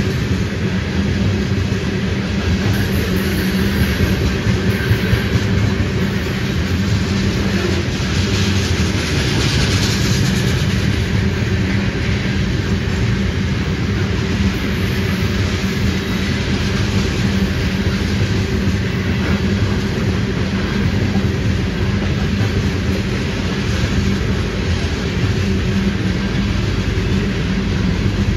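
Freight train of tank cars rolling past close by: a steady, loud rumble of steel wheels on the rails.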